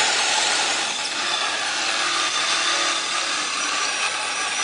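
Diablo Demo Demon carbide-tooth rough-in hole saw driven by a power drill, cutting steadily through material without a break.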